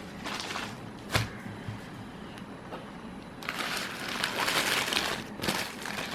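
Paper burger wrapper crinkling and rustling as a burger is unwrapped and handled, with a single sharp tap about a second in and denser crinkling during the last few seconds.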